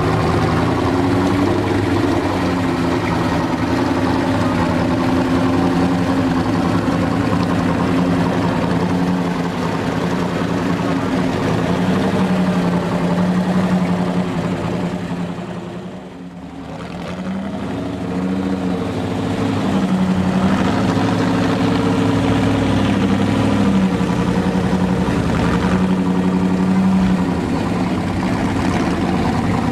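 Tatra 805's air-cooled V8 engine working through an off-road trial section, its revs rising and falling as the driver works the throttle, with a brief drop to low revs about halfway through.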